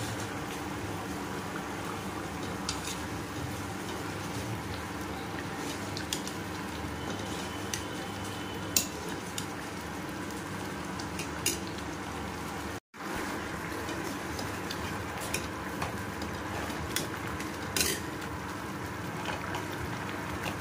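Steel ladle stirring a simmering curry in a steel kadai, over a steady sizzle, with a few sharp clinks of the ladle against the pan.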